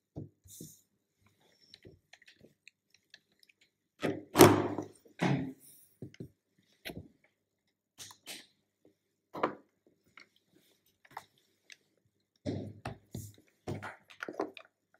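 Handling noises on a wooden desk: scattered taps and knocks as a laptop lid is opened and shut and a small earbud case is picked up and set down. There is a louder thump about four and a half seconds in, and a quick run of knocks near the end.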